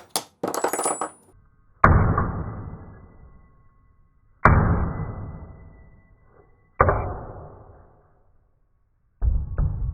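Three heavy booming impacts, about two and a half seconds apart, each dying away slowly over a couple of seconds. Near the end comes a quicker run of knocks.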